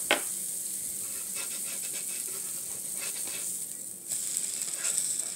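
Small pancakes sizzling on a flat-top griddle, with a few light clicks from a spatula. The sizzle swells about four seconds in as a pancake is flipped over onto the hot griddle.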